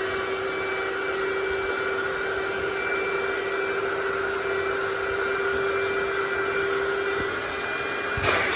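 Small electric pump motor running with a steady hum. Near the end there is a brief rush of noise, after which the hum settles slightly lower in pitch.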